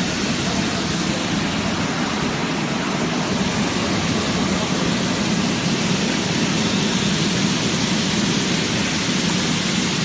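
Industrial vegetable washing machine running: water from the spray-bar nozzles rushing and splashing steadily onto the greens and into the wash tank.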